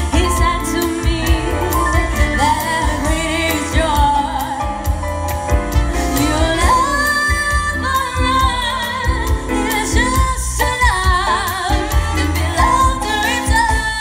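A woman singing a wavering, vibrato-laden melody into a microphone, backed by a live band with piano and drums playing a bossa nova arrangement.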